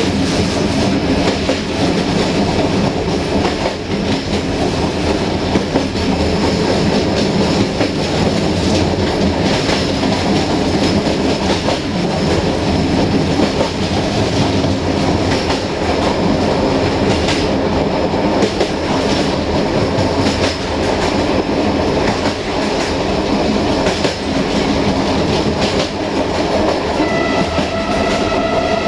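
Passenger train coach running steadily along the track, its wheels clattering over the rail joints.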